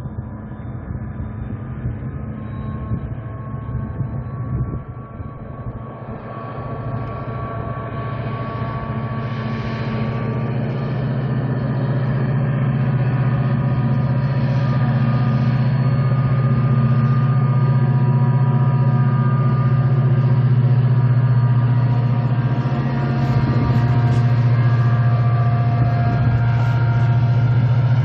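Korail diesel locomotive running as it hauls a freight train, a steady low engine hum with fainter steady tones above it. It grows louder over the first twelve seconds or so as the train approaches, then holds.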